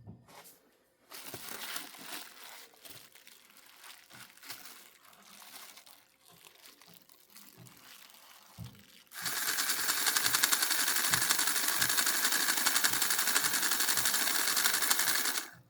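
Rivarossi Casey Jones 4-6-0 model locomotive's motor and gears running on test, at first a faint uneven rattle, then about nine seconds in a loud steady mechanical rattle as it runs faster, cutting off suddenly near the end.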